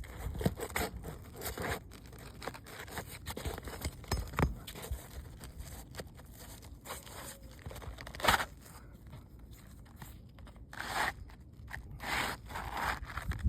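Roofing shingles being pried and scraped loose, with irregular scraping and tearing and scattered knocks. One sharp knock comes about eight seconds in, and a few rasping scrapes come near the end.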